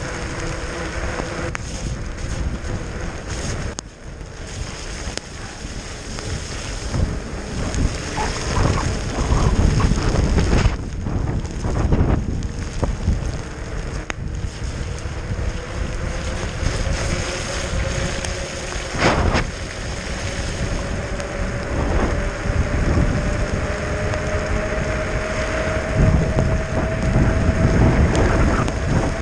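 Wind buffeting a GoPro's microphone on a fast mountain bike descent, over the rumble of tyres on rough trail and repeated knocks as the bike hits bumps. A faint whine slowly rises in pitch in the second half.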